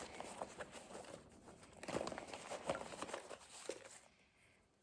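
Packaging rustling and crinkling as products are handled and rummaged through, a quiet, uneven run of small crackles and taps that stops about four seconds in.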